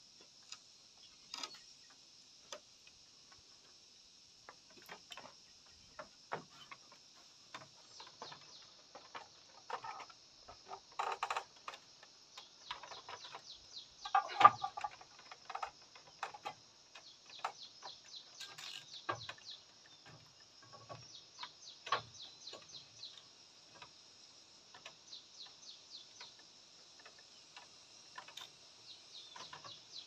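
Clay roof tiles clicking and knocking against each other and the bamboo battens as they are set in place by hand, in irregular sharp clacks, busiest and loudest around the middle. A steady high-pitched drone runs underneath.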